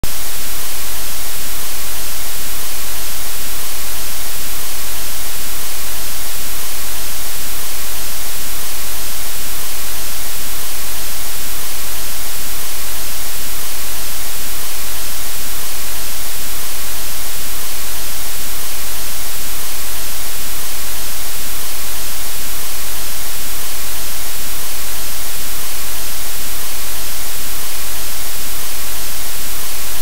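Loud, steady stereo white noise: a constant, even hiss that never changes.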